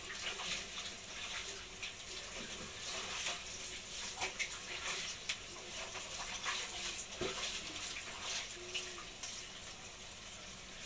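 Marlin scraps frying in a pan of hot oil: a steady sizzle with many small crackles and pops of spattering oil.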